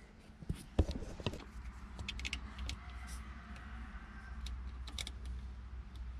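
Scattered small metallic clicks and taps as wire ring terminals are fitted by hand onto a starter solenoid's threaded terminal stud, over a low steady hum.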